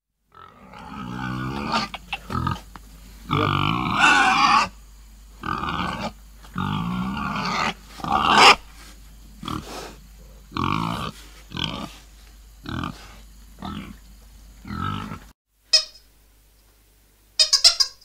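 Pigs grunting and squealing in a long run of short calls, some rising into high squeals, stopping about fifteen seconds in. A few brief high squeaks follow near the end.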